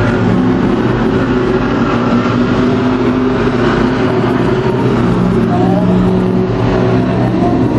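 Several stock car engines running together as the cars lap a short oval track. The sound is steady and loud, with the pitch shifting slightly as they pass.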